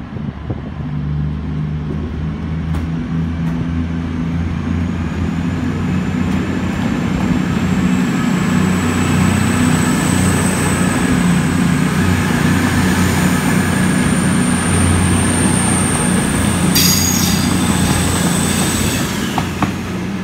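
CrossCountry Class 221 Super Voyager diesel-electric multiple unit departing and accelerating past, its underfloor diesel engines running under power and growing louder as the cars go by. A thin high whine rises slowly in pitch above the engines, and there is a short clatter near the end.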